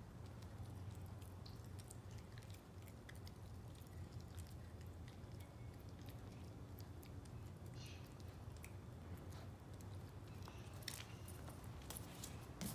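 Parson Russell Terrier puppy chewing and biting a brussels sprout: soft, scattered crunching clicks over a steady low hum.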